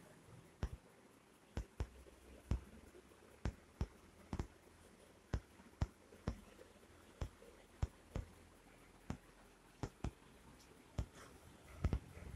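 A string of short, faint clicks at uneven intervals, about one or two a second, over a quiet room.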